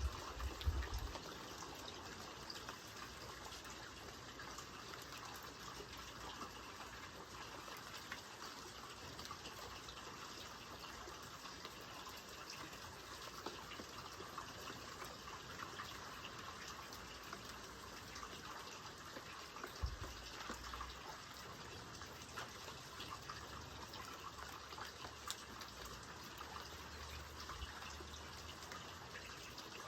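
Steady rain falling: an even, faint hiss of drops with scattered small ticks, and one low thump about two-thirds of the way through.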